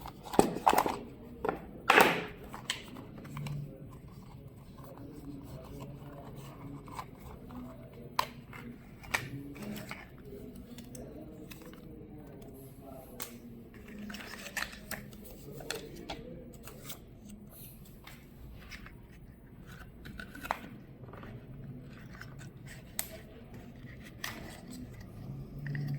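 Packaging and earbud case being handled during an unboxing: scattered sharp clicks, scrapes and rustles, the loudest a few in the first couple of seconds, over a faint steady hum.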